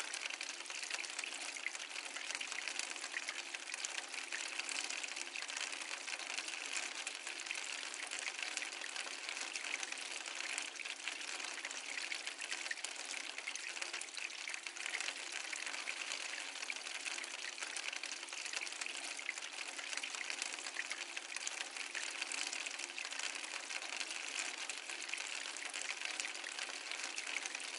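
Steady rain falling on a veranda roof, a dense, even spatter of many small drops.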